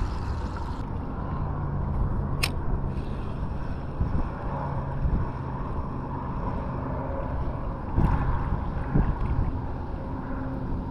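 Wind rumbling on the microphone, a steady low buffeting, with a single sharp click about two and a half seconds in.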